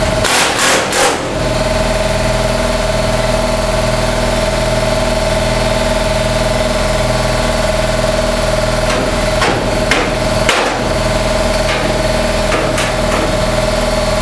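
Unmuffled pneumatic air chisel hammering steadily, chiseling through the sheet metal of a car's quarter panel. It starts in a few short bursts, then runs continuously with a few brief breaks.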